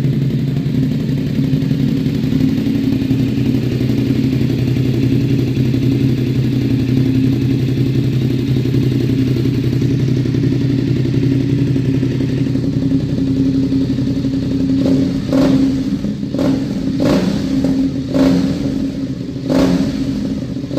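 BMW F850's parallel-twin engine running through an aftermarket sport exhaust, holding a steady loud idle note. In the last quarter, about six short, sharp bursts break up the steady note.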